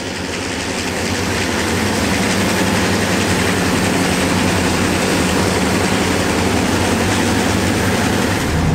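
A group of diesel freight locomotives passing close on a curve, their engines running heavily. The sound grows louder over the first couple of seconds as they come nearer, then holds steady.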